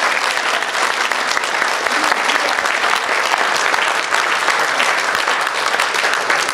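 Audience applauding steadily, a dense clapping that holds at an even level throughout.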